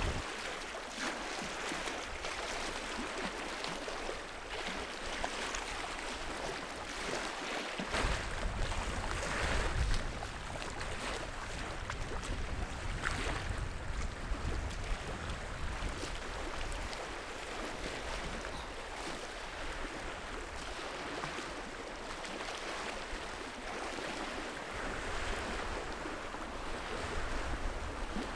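Small lake waves lapping and splashing against a rock shoreline, with wind gusting on the microphone about eight to ten seconds in.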